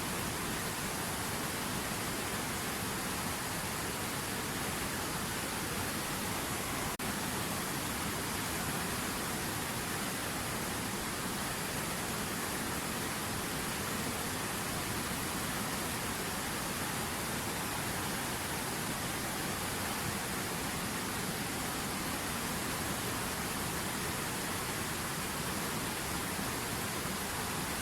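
River water running: a steady, even rush with no change in level.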